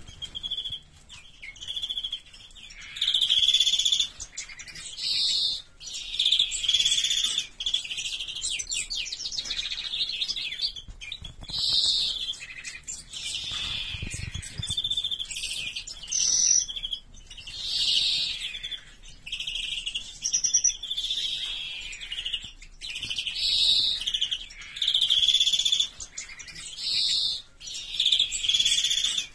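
European greenfinch singing: a run of high chirping and trilling phrases, each a second or two long, repeated with short gaps.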